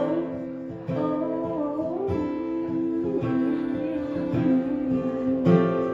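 Acoustic guitar playing a short instrumental passage between sung lines, with picked melodic notes and a fuller strummed chord near the end.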